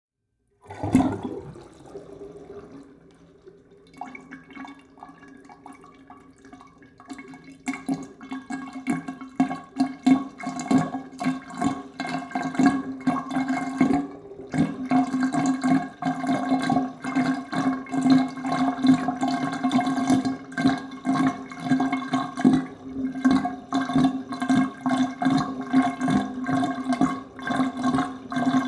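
Bathtub water draining down the plughole: gurgling and glugging starts suddenly just under a second in, eases off for a few seconds, then from about seven seconds in becomes a dense, irregular run of glugs over a steady hollow note.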